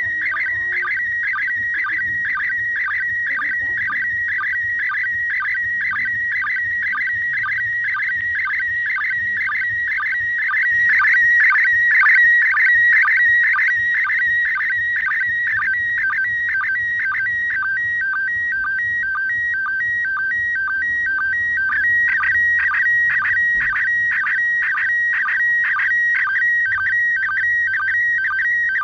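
Slow-scan television (SSTV) PD120 signal from the International Space Station on 145.800 MHz, heard through a Baofeng UV-5R handheld radio's speaker: a steady warbling tone around 2 kHz broken by a rapid, regular pulse of sync beeps as the picture is sent line by line.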